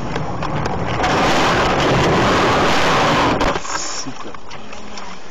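Car leaving a snowy road and ploughing into deep snow: a loud rushing of snow against the car for a couple of seconds, cut off abruptly as the car comes to rest.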